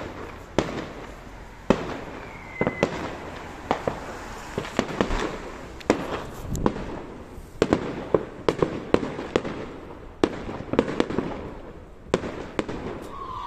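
Fireworks going off all around: a constant run of sharp bangs and pops at uneven intervals, some coming in quick clusters.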